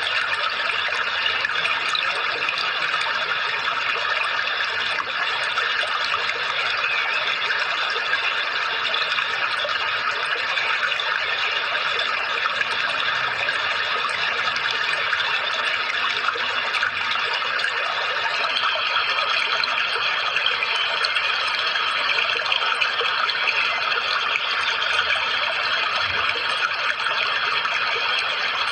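Steady, unbroken rush of running water, like a stream or small waterfall.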